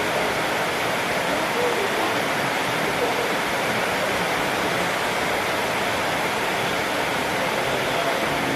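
Steady rushing noise at an even level, with faint murmured voices around two to three seconds in.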